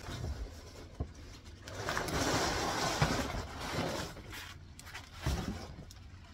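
Cardboard box and the plastic sleeve around a potted holly rustling and scraping as the plant is pulled out, with a few dull thumps.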